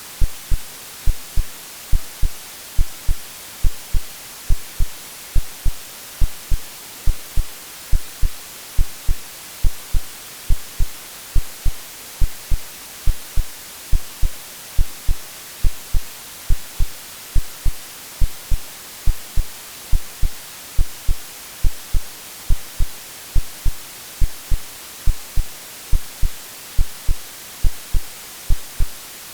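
Synthesized heartbeat of soft low double thumps (lub-dub) in a steady, unbroken rhythm, layered over constant white-noise hiss, a womb-like sound made for soothing babies to sleep.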